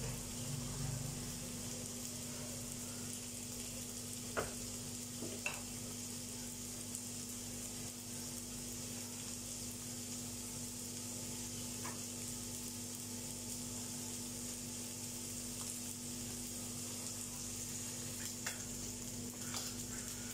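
A pressed layer of cooked rice frying in oil in a nonstick frying pan, with a steady sizzle as the underside crisps into a scorched-rice crust (cơm cháy). A steady low hum runs underneath, and a few faint clicks come at scattered moments.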